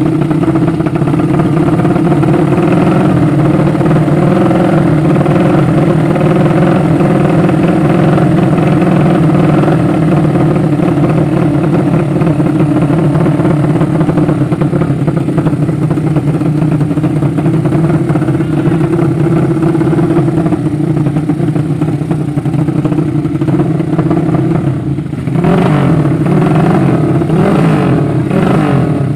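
200cc horizontal-cylinder drag-racing motorcycle engine held at high revs, loud and steady. Near the end the sound briefly drops, then the revs rise and fall unevenly.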